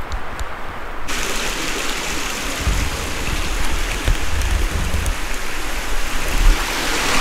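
Steady rushing hiss of a small creek, starting suddenly about a second in, with low rumbling on the microphone. Before it come a few faint ticks of footsteps through dry brush.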